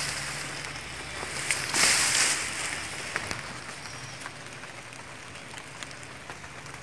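Rustling of tall grass and leaves brushing close to the microphone, with a louder swell of rustling about two seconds in and a few faint snaps.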